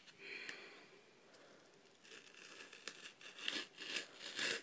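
Adhesive tape being peeled and ripped off the rim of a plastic deli cup's lid, a series of short ripping strokes starting about halfway through and growing louder near the end.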